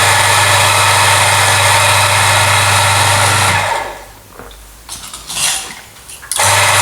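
Electric water pump buzzing steadily, a Shurflo pump that feeds the espresso machine because there is no mains water. It cuts off a little under four seconds in, a few faint knocks follow, and it starts again near the end.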